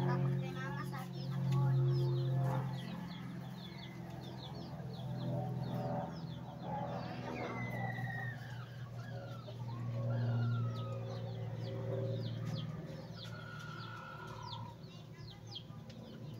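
Chickens clucking, with many short high chirps, over a low steady hum that swells and fades.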